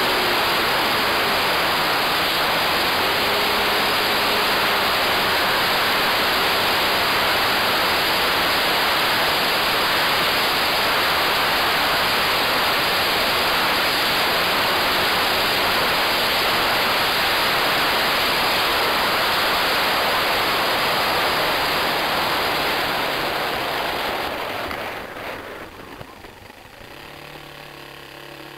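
Steady rush of wind and propeller heard from on board a radio-controlled model Sopwith Pup in flight, with a faint engine tone that wavers. Near the end the rush falls away sharply as the model comes down, leaving the engine running quietly.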